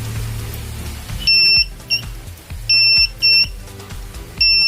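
Buzzer of a homemade laser-and-light-dependent-resistor alarm circuit sounding a single high steady tone. It gives about four short, irregular beeps in the middle, then a long continuous tone starting near the end. It sounds whenever the laser beam on the light-dependent resistor is broken and stops when the beam hits it.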